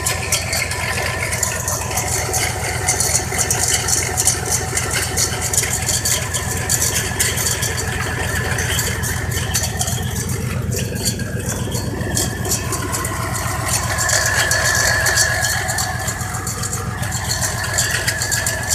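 1990 Cadillac DeVille's 4.5-litre V8 idling with an even, steady pulse, along with a noise the owner believes is the alternator going out. A wavering whine comes in about two-thirds of the way through.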